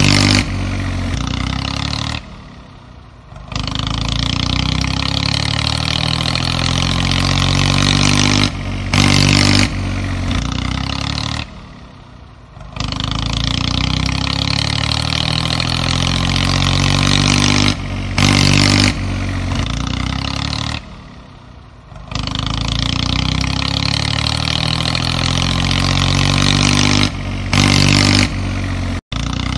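A tractor engine running and revving, apparently a looped recording: the same stretch of about nine seconds plays three times, each time dropping away for about a second and then coming back.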